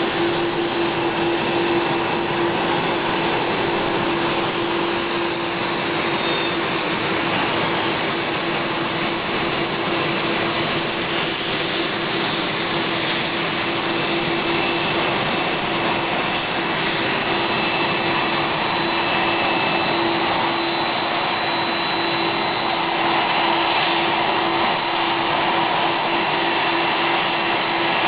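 Air Force One, a Boeing VC-25A (747), taxiing with its four General Electric CF6 turbofan engines at low thrust: a steady rushing hiss with a steady high whine.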